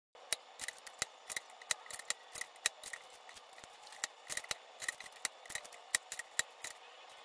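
Paper trimmer cutting photo-paper art prints: a quick, irregular run of sharp snips and clicks, about three or four a second.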